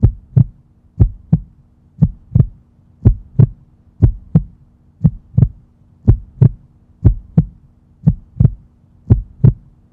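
Heartbeat sound effect: ten double low thumps (lub-dub), about one a second, over a faint steady hum.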